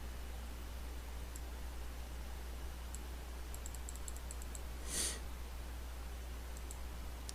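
Faint computer mouse clicks over a steady low electrical hum: a few single clicks, then a quick run of about eight small ticks between three and five seconds in. A short breathy hiss follows about five seconds in.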